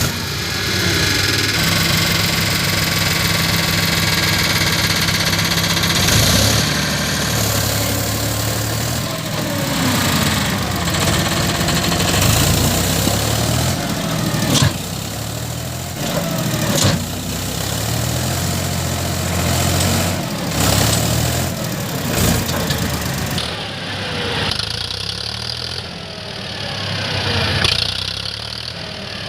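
Diesel engine of a JCB 3DX backhoe loader running and revving up and down as it works, with a few sharp clanks in the middle.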